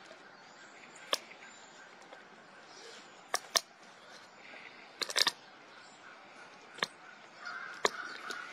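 Golden tiger crunching on a bone. It gives a handful of sharp cracks at irregular intervals, with a quick cluster about five seconds in.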